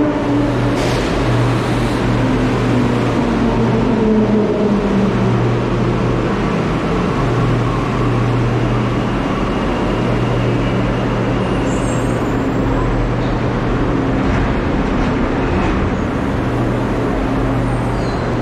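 Rubber-tyred Santiago Metro Line 1 train pulling into an underground station, its motor whine falling in pitch as it brakes over the first few seconds. Then a steady low hum and rumble as it stands at the platform.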